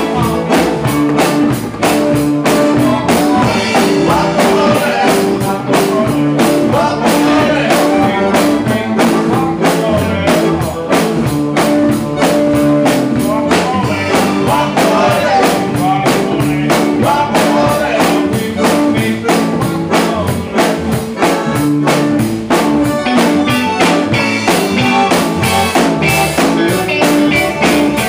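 Live band playing: a drum kit keeps a busy, steady beat under bass guitar and guitar, with no break in the music.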